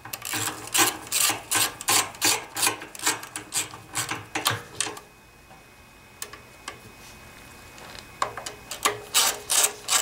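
Socket ratchet wrench clicking in quick runs as it spins nuts down on a small generator engine's carburetor and air-filter housing, pausing for a few seconds partway through before clicking again near the end.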